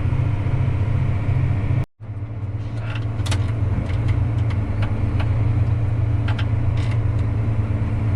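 Tractor engine running steadily at speed under load, driving the grain cart's PTO unloading auger while it empties corn. It cuts out abruptly for an instant about two seconds in, and after that scattered sharp ticks and rattles sound over the engine.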